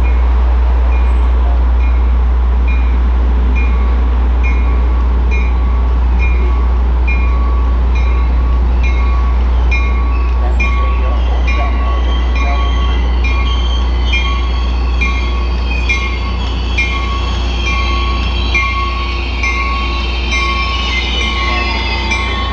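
Caltrain train at the platform: a steady low rumble, with a bell striking a little faster than once a second. About two-thirds of the way in, high wavering squeals of wheels or brakes join in.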